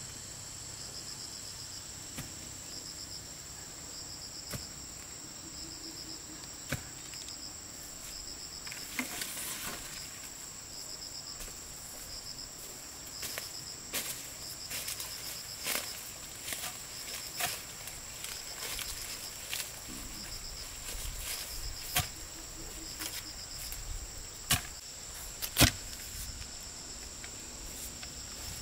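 Insects calling: a continuous high drone with a cricket's short pulsed chirps repeating about once a second. Scattered sharp knocks and taps sound over them, the loudest near the end.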